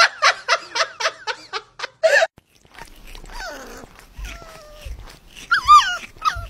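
A woman laughing in quick short bursts. After a brief pause, a puppy whimpers with thin falling whines, then gives a louder wavering whine near the end.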